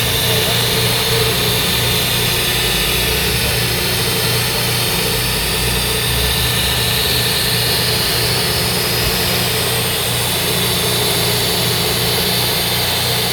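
Steady, unbroken mechanical drone of a running engine or motor, a constant low hum under a broad hiss.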